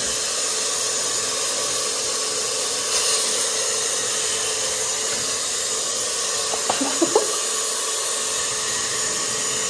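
Handheld pet hair dryer running steadily, an even rush of blown air with a steady motor whine under it.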